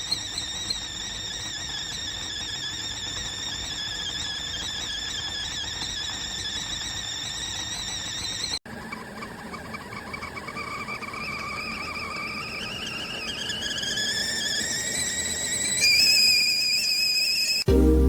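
Amazon Basics stainless steel stovetop tea kettle whistling at the boil, a wavering high whistle. About halfway through, the whistle starts again lower and climbs steadily in pitch and loudness as the steam builds. Near the end it jumps to a louder, higher note.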